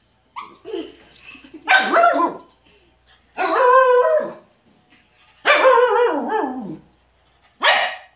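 A dog vocalizing in play with four drawn-out, howling barks, each up to about a second long; the third slides down in pitch as it ends.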